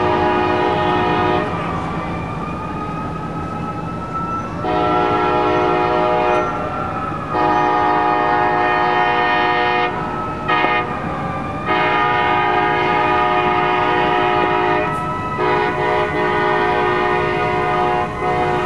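Diesel locomotive's multi-chime air horn blowing a series of long blasts with short breaks, sounded for a grade crossing. Under it, a Federal Q mechanical siren on a fire engine wails, its pitch slowly rising and falling.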